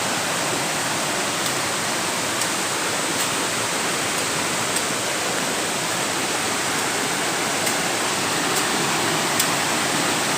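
Waterfall on a rocky river, water rushing steadily in an even, continuous noise.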